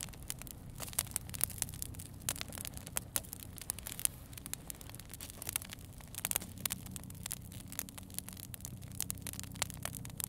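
Wood campfire crackling, with frequent irregular pops and snaps over a low steady hum.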